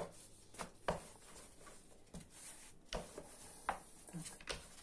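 Faint, scattered light taps and knocks, about eight, of hands and a plastic rolling pin working dough on a wooden board.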